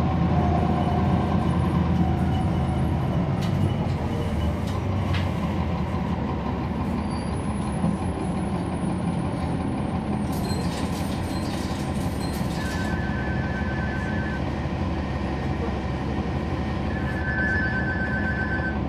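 Inside a NABI 40-SFW transit bus under way: its Cummins ISL9 inline-six diesel runs steadily under the road noise, easing a little after about four seconds. A cluster of sharp rattles comes about ten seconds in. A fast, high-pitched beeping sounds twice in the second half.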